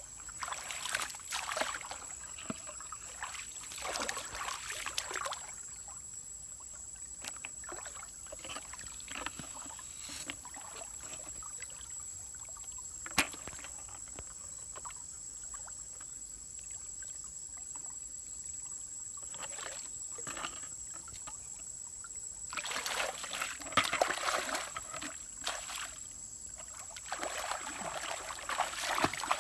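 Shallow stream water sloshing and splashing as a person wades through it and works a net in it, with a soft trickle of running water in the quieter stretch between. The splashing is heaviest near the end, as he wades off through the water, and a single sharp click comes in the middle.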